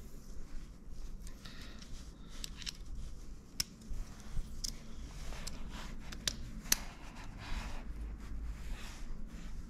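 Small metal clicks and faint scraping as the parts of a Campagnolo rear derailleur are handled and fitted together by hand, with a few sharper ticks scattered through.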